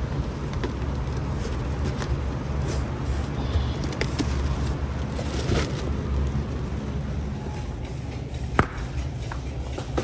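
Warehouse-store background noise: a steady low rumble with scattered light clicks and knocks, and one sharp click near the end.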